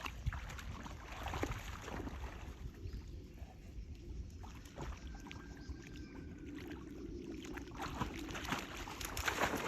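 Pond water splashing and sloshing as dogs paddle and wade, with splashes coming thicker near the end. Low wind rumble sits underneath.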